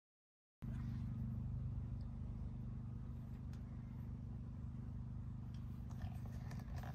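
A neighbouring campsite's RV generator running with a steady low hum, heard from inside a tent. It comes in after a moment of silence and drops in level near the end.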